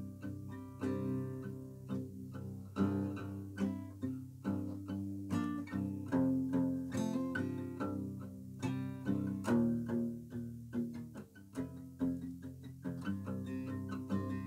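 Acoustic guitar played solo, a slow run of plucked notes and chords, each ringing out and fading before the next.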